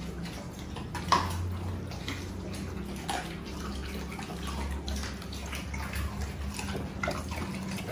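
Dogs eating raw chicken from stainless steel bowls: wet chewing and licking with scattered clicks of teeth on the bowls, and one sharper knock about a second in. A steady low hum runs underneath.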